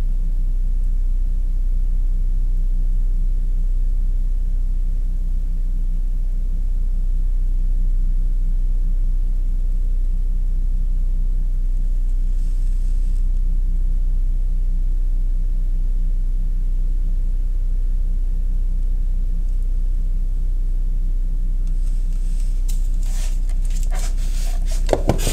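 Steady low hum with a few faint steady tones above it. In the last few seconds there is clicking and knocking, handling noise as the camera is picked up and moved.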